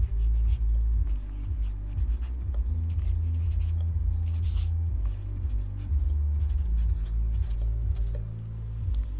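Felt-tip marker scratching across paper as words are written by hand, in many short strokes, over a low hum.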